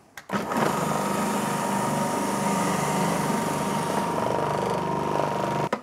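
Magimix Duo Plus XL centrifugal juicer running as apple is pushed down its feed tube and shredded, with a steady motor whine. It starts abruptly just after the beginning and cuts off suddenly just before the end.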